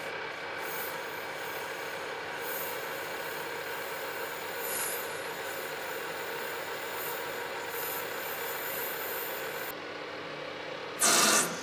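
Metal lathe running steadily while a high-speed steel grooving bit cuts an O-ring groove into a spinning acrylic blank, a steady machine hum with a faint high hiss from the cut. Near the end a loud harsh burst of about half a second as the tool takes too much at once.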